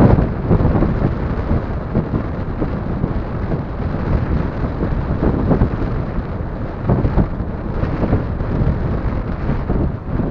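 Strong wind buffeting the microphone: a loud, low rumbling noise that swells and drops in irregular gusts.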